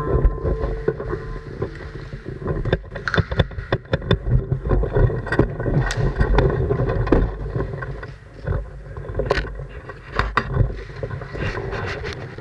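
Low rumbling movement and handling noise, with scattered sharp clicks and knocks at irregular intervals.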